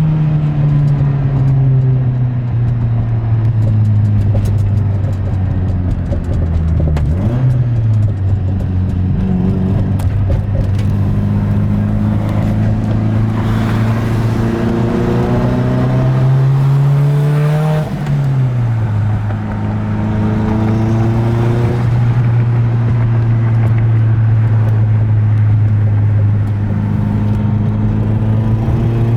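Mazdaspeed 6's turbocharged 2.3-litre four-cylinder engine driving under load. Its note climbs slowly and drops sharply at two gear changes, about seven and eighteen seconds in.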